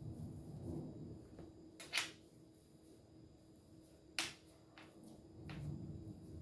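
Faint rubbing of hands rolling a strip of ensaimada dough on a paper-lined table, with two sharp clicks, about two and four seconds in.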